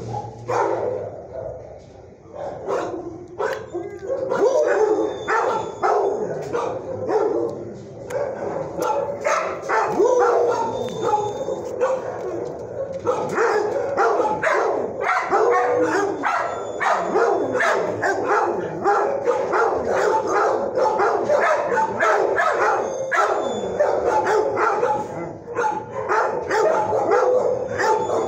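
Many dogs in a shelter's kennels barking and yipping over one another in a continuous din, with a short lull about two seconds in.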